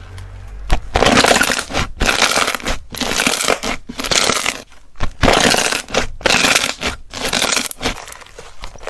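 Slime being squeezed and pressed by hand, making a series of loud, noisy bursts about once a second.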